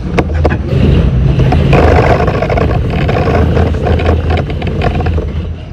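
R68 subway train running at speed, with a steady low hum under the noise of the wheels on the rails and repeated sharp clicks from the track. The noise swells about two seconds in as the train enters the tunnel, then eases a little near the end.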